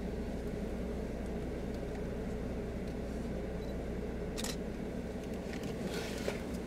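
Steady low hum of a car's engine and cabin from inside the vehicle, with a couple of faint clicks about four and a half and six seconds in.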